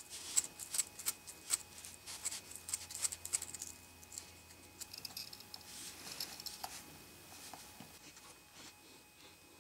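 Small plastic parts of a toy electric-motor kit handled by hand: a quick run of light clicks and ticks for the first few seconds, then softer rubbing and scraping with a few more clicks, fading toward the end.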